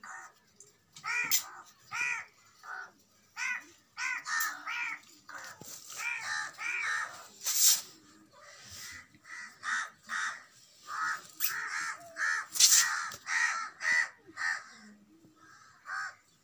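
Many short animal calls in quick succession, each rising and falling in pitch, with two sharp clicks partway through.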